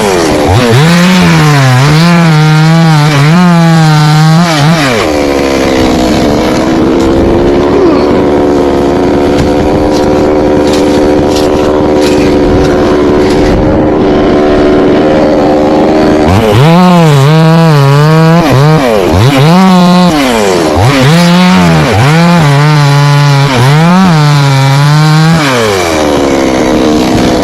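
Petrol chainsaw revved up and down in repeated short bursts, idling steadily from about five seconds in until about sixteen seconds, then revved in bursts again before dropping back to idle near the end.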